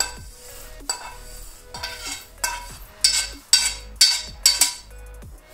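Dry-roasted fennel and fenugreek seeds being tipped and scraped out of a stainless steel pan into a small steel bowl, the metal pan knocking against the bowl about twice a second with a brief metallic ring. The knocks get louder from about three seconds in.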